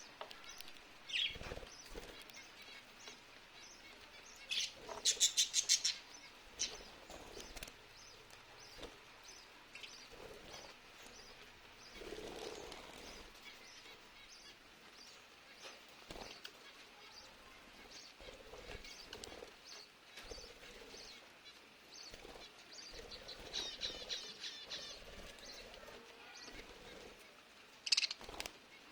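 Lovebirds chirping and chattering, with a loud run of rapid high chirps about five seconds in, another run near the end, and a single sharp call just before it finishes.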